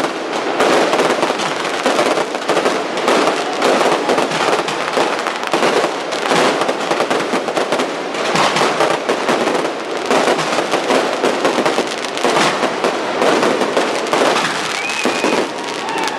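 Fireworks bursting in dense, continuous volleys, a steady crackling barrage of many sharp pops and bangs.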